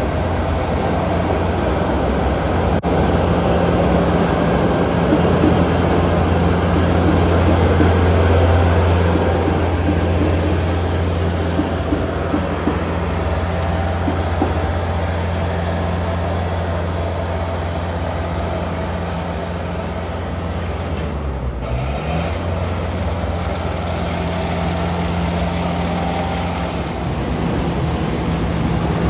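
Heavy diesel engine running steadily with a low hum. Its pitch dips briefly and comes back up about two-thirds of the way through.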